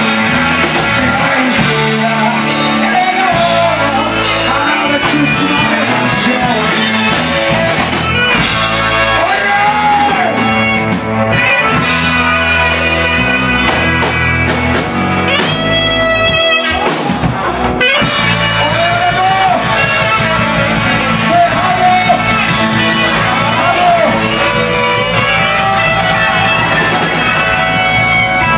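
Rock song played by a band, with electric guitar to the fore.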